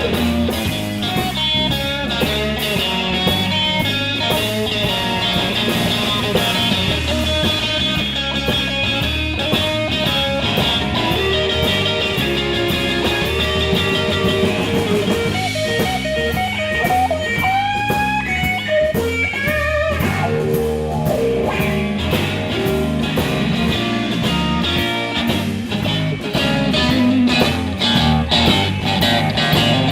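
Live blues band playing an instrumental break: electric guitar takes the lead with bent, sliding notes over bass and a steady drum beat.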